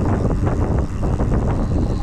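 Wind buffeting the microphone of a camera riding on a moving RadRunner e-bike, a constant low rumble with many small rattles and knocks mixed in.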